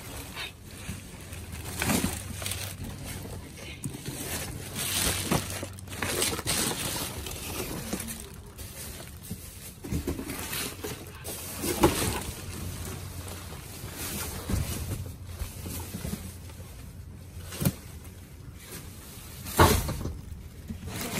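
Plastic bags, foil gift wrap and cardboard boxes crinkling and rustling as gloved hands rummage through them, in irregular bursts with a couple of sharper knocks, the loudest near the end. A low steady hum sits underneath.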